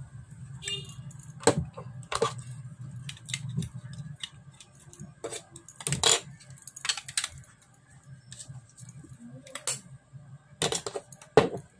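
Handling noise from small pod vape mods and their pods: a string of irregular sharp clicks and light plastic-and-metal knocks, the loudest about six seconds in and again near the end.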